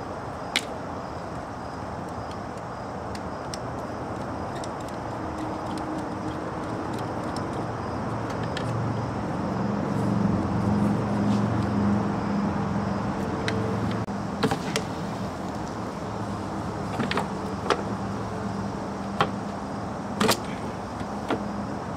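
Plastic air-intake duct and airbox being worked loose by hand under the hood: a few sharp plastic clicks and knocks, most of them in the second half, over a steady low hum. A louder low vehicle drone swells about halfway through and fades.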